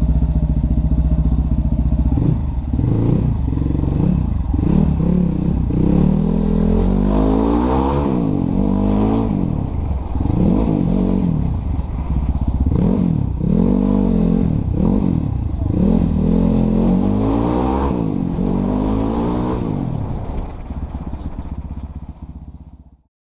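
Motorcycle engine idling briefly, then revved over and over with short throttle blips, each rev rising and falling back about every second or two. The sound fades out near the end.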